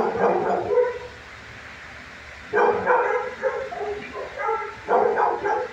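Dogs barking and yipping in a shelter kennel, in three loud bouts: at the start, from about two and a half seconds in, and again near the end.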